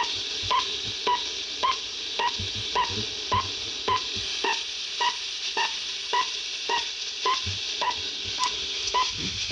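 Repeating electronic signal from a receiver: short pulses with a beep-like tone, just under two a second, over steady static hiss.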